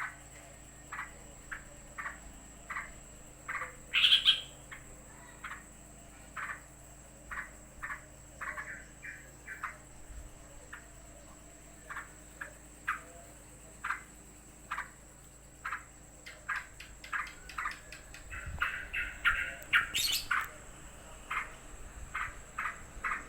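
Yellow-vented bulbul (trucukan) giving short, sharp agitated calls about once or twice a second, stirred up by another bird nearby. One louder call comes about four seconds in, and the calls bunch into a rapid, louder flurry near the end.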